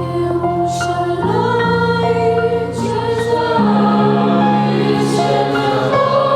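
A choir singing slow, held chords that shift every second or two, with brief soft 's' sounds from the words now and then.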